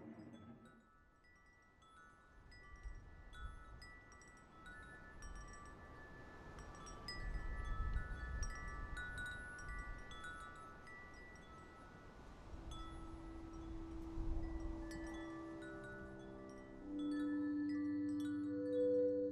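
Wind chimes tinkling: scattered, overlapping ringing notes at several pitches over a low rumble. Held low tones join past the middle and swell louder near the end.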